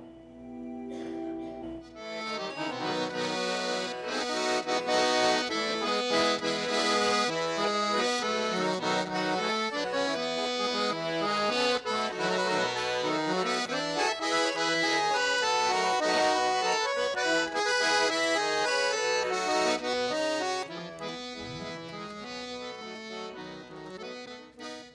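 Piano accordion playing: a held chord opens, then a busy melody over chords comes in about two seconds in, growing softer in the last few seconds and stopping just before the end.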